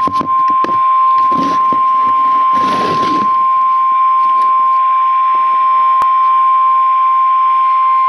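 Kaito Voyager Pro weather alert radio sounding the NOAA Weather Radio 1050 Hz warning alarm tone through its speaker: one loud, steady, unbroken tone announcing that a warning message follows. A few brief handling rustles in the first three seconds.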